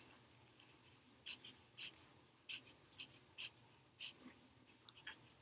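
A pen drawing short, quick lines on paper, scratching roughly twice a second with short pauses between strokes.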